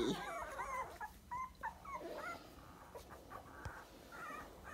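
23-day-old dachshund puppies whimpering and squeaking: a tangle of short, high, wavering cries in the first second, then scattered single squeaks.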